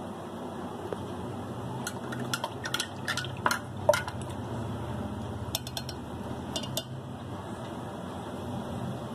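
Spoon and glass dishes clinking and scraping as salt is tipped from a glass bowl into a glass jug: a quick run of clinks over about two seconds, then a few lighter clinks a little later.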